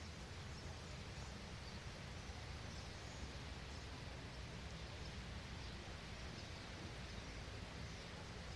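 Faint outdoor nature ambience: a steady hiss with a low rumble underneath and a few faint, brief high bird chirps.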